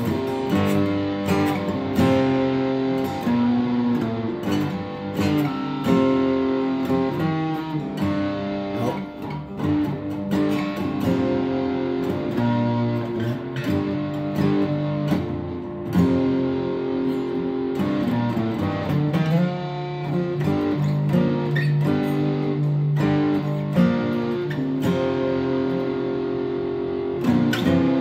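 Acoustic guitar played solo: strummed chords ringing out and changing every second or two.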